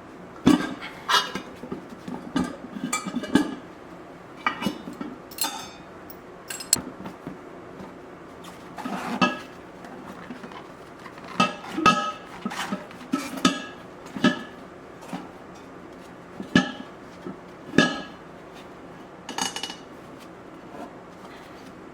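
Irregular metallic clanks and clinks, about twenty in all: hard metal pieces or hand tools knocking against metal, each with a brief ringing tone.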